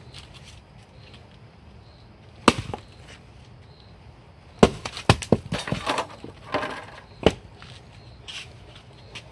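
A log being chopped and split on a wooden block: a sharp blow of a blade into the wood about two and a half seconds in, then several quick blows with the crackle of wood fibres tearing as the log splits apart, and a last sharp knock a couple of seconds later.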